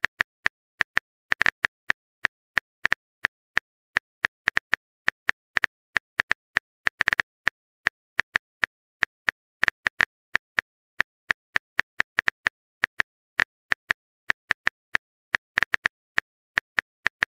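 Smartphone keyboard tapping sounds: short, sharp clicks at an uneven pace of a few per second as a text message is typed.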